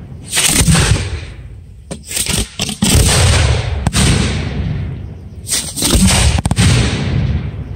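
Aerial fireworks shells bursting one after another, each loud bang trailing off in a long rumbling echo, with a quick cluster of sharper cracks a couple of seconds in.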